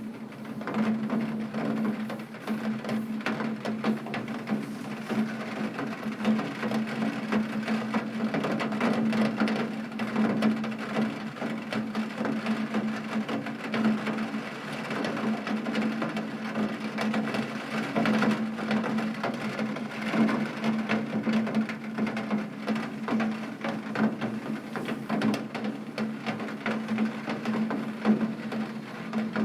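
Heavy rain striking a window pane: a dense, steady patter of drop ticks, with a low steady hum underneath.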